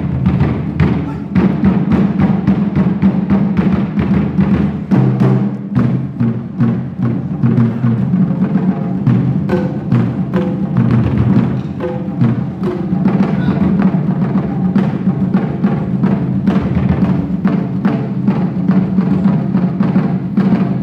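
An ensemble of taiko-style drums played by three drummers: a fast, driving pattern of sticks striking the drum heads, with the pattern changing about five seconds in.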